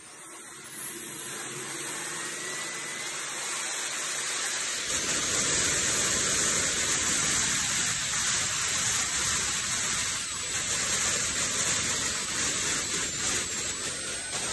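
Linton 80N model jet turbine spooling up, its high whine rising in pitch over the first few seconds, then running steadily at full power, about 160,000 rpm, with a loud, even jet rush.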